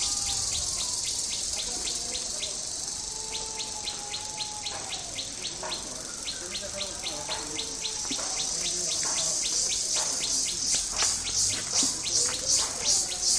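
Insects calling in a fast, even pulsing rhythm that swells louder near the end, with faint bird whistles underneath.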